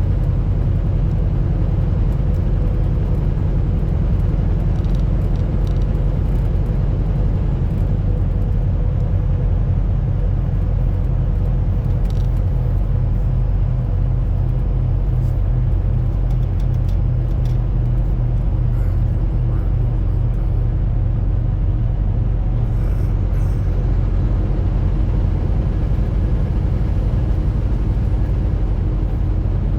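Semi-truck's diesel engine running steadily with a low, even drone, unchanged throughout.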